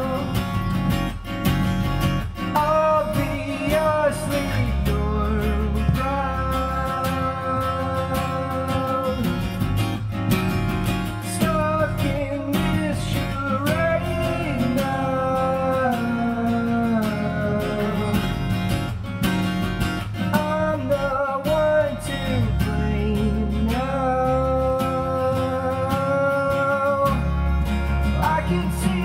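Live acoustic song: a man singing long held notes over a strummed acoustic guitar, with electric bass underneath.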